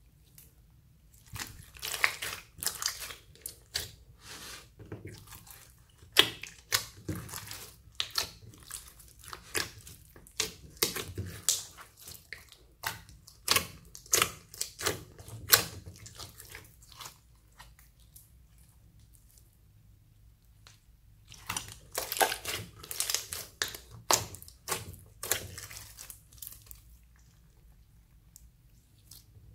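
Clear slime mixed with beads and glitter being squeezed, pressed and stretched by hand in a glass dish, making wet sticky clicks and pops in dense irregular runs, with a lull of about five seconds just after the middle.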